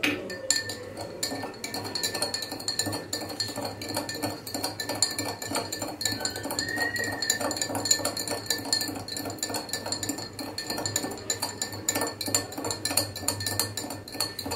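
Metal spoon stirring sugar into lemon juice and water in a tall drinking glass, clinking rapidly and continuously against the glass, which rings.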